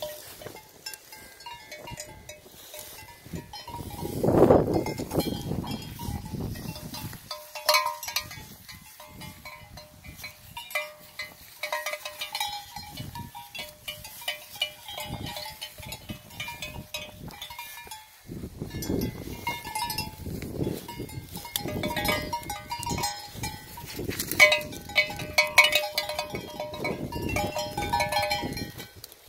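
A sheep's bell clanking irregularly as the flock moves about, with stretches of low rumbling scuffle noise about four seconds in and through the second half.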